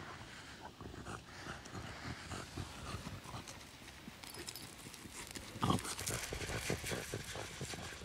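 Coarse sand and pebbles crunching and scraping in a run of short irregular clicks, with one louder thud a little before six seconds in.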